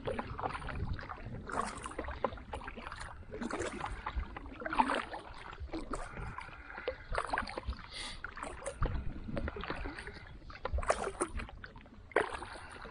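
Water splashing and lapping around a kayak on rippled loch water, in irregular bursts every second or two, over a low steady rumble.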